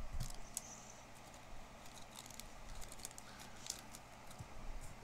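Pokémon trading cards being handled: faint, quick clicks and light rustling of card stock, with a soft low bump right at the start.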